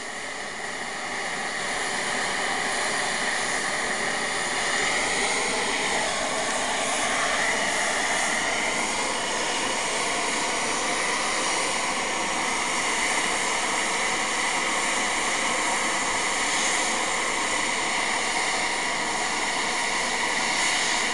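Nickel Plate Road 765, a 2-8-4 Berkshire steam locomotive, blowing off excess steam from the top of its boiler while standing still to let off built-up pressure. It makes a loud, steady hiss that builds over the first couple of seconds and then holds level.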